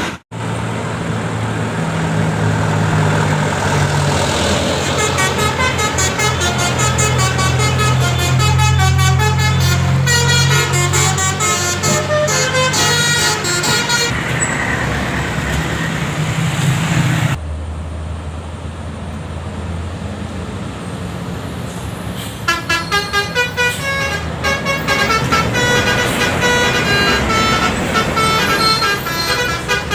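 Telolet-style multi-tone bus air horn playing fast runs of short notes that jump between pitches, over the steady hum of the bus's engine. About halfway through it breaks off and a different horn takes over with quick pulsing notes.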